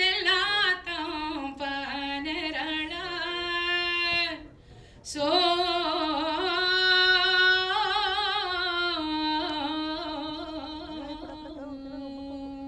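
A woman singing unaccompanied into a microphone: two long phrases of held notes with vibrato, with a short breath break about four and a half seconds in.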